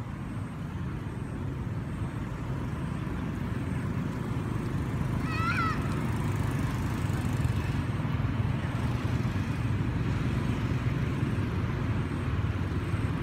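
Steady low rumble, a little louder from about five seconds in, with one short high chirp at about five and a half seconds.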